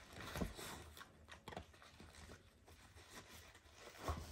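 A Lagotto Romagnolo dog chewing and tearing at a treat package wrapped in paper and foil: faint crinkling and rustling with scattered small clicks, and a couple of duller knocks, one about half a second in and one near the end.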